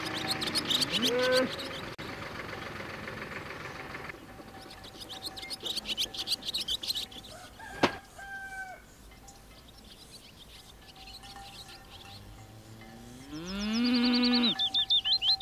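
Farmyard animal sounds: a rooster's crow trailing off at the start, then hens clucking and small birds chirping in quick bursts. Near the end a cow moos once, a long call that rises in pitch and is the loudest sound.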